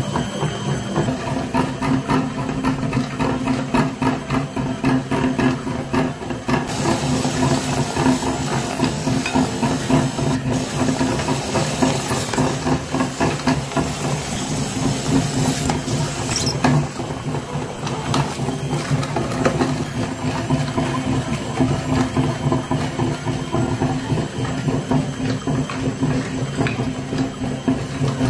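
Meat grinder running, its motor humming steadily while the auger turns and grinds a white object fed into the throat. A hissing, scraping noise rides on top from about six seconds in until about sixteen seconds.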